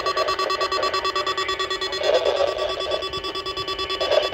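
Electronic alert tone from a NOAA Weather Radio Emergency Alert System test: a loud, steady alarm of several tones together, pulsing rapidly.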